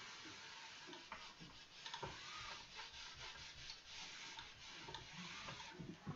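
Small iron and a hand sliding over folded cotton fabric, pressing in a fold line: a faint rubbing with a few light ticks.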